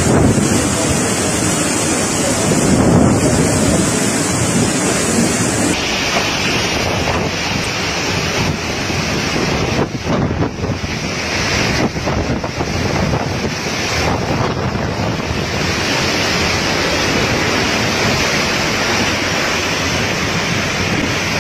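Strong storm wind and heavy rain, with gusts buffeting the phone's microphone in a dense, steady rushing noise.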